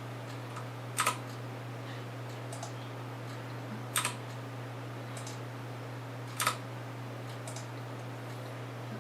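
Computer keyboard clicking: three sharp key presses about a second, four seconds and six and a half seconds in, with fainter ticks between them, over a steady low electrical hum.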